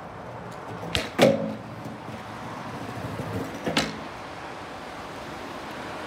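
Skateboard trick attempt on brick paving: a sharp pop of the board about a second in, followed at once by the board clattering down hard with a brief ringing, then another board clack on the pavers near four seconds.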